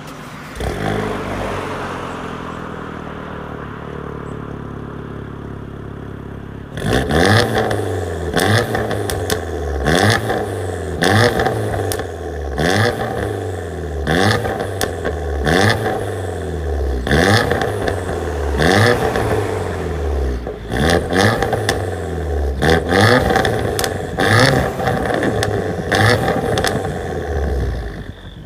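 Vauxhall Corsa VXR's 1.6-litre turbocharged four-cylinder idling. About seven seconds in it starts being revved again and again, a blip about every second and a half, each followed by crackling pops and bangs on the overrun.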